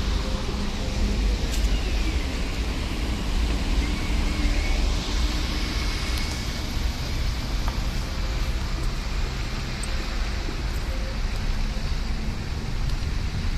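Street traffic: cars driving past on a wet, slushy road, with a steady rumble and tyre noise.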